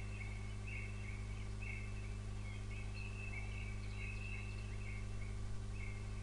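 Quiet background: a steady low hum with faint, short high chirps that repeat about once or twice a second.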